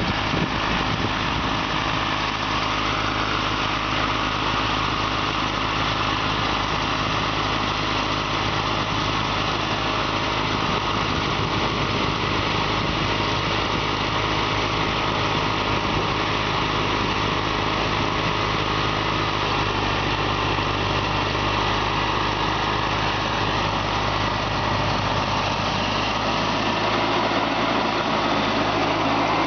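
Case 446 garden tractor's engine running steadily during snow blowing, with a slight change in its tone about 26 seconds in.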